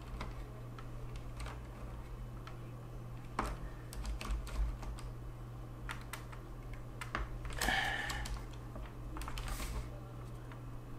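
Irregular plastic clicks and taps from a Corsair Strafe RGB mechanical keyboard with Cherry MX Silent switches, as a replacement spacebar keycap is worked onto its switch stem and side pegs. A brief rustle comes about three-quarters of the way through, over a low steady hum.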